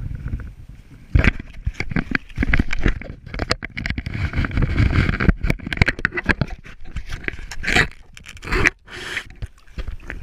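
Muffled water rushing and sloshing around a camera as it is pushed underwater. Frequent irregular knocks and scrapes of handling against the camera housing start about a second in.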